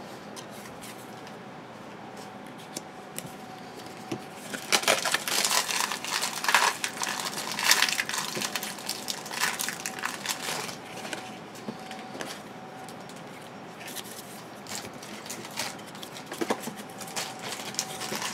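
Football card pack wrapper crinkling as it is torn and worked open, loudest from about four to eleven seconds in, followed by lighter rustling and clicking of the cards being handled.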